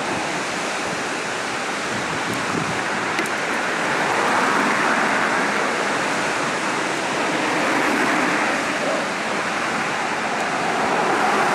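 Steady rushing of a nearby waterfall, an even hiss with no breaks.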